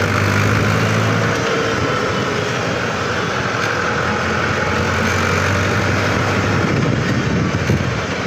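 Mahindra tractor's diesel engine running steadily under way on the road, a low, even hum with road and wind noise over it.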